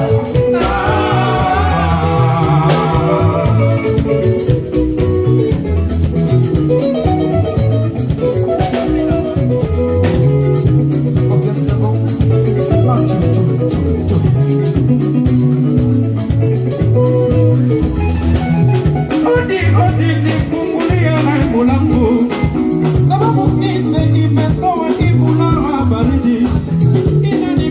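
Congolese rhumba band playing an instrumental passage: melodic electric guitar lines over a steady, driving bass guitar line and percussion.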